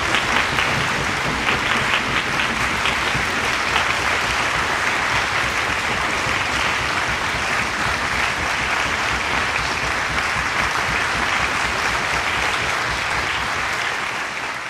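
Audience and orchestra applauding steadily after the piece, fading out near the end.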